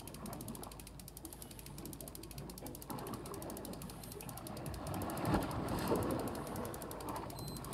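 Fishing reel being cranked against a heavily bent rod, its gears clicking rapidly as a hooked fish, a threeline grunt (isaki) being the target, is reeled in. From about three seconds in there is water splashing, loudest around the middle, as the catch nears the surface.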